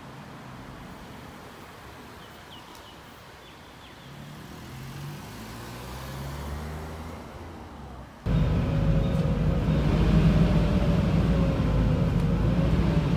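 Faint street traffic, with a vehicle's low hum swelling by in the middle. About eight seconds in, it gives way suddenly to the much louder low rumble of a moving vehicle, heard from inside, with a faint whine over it.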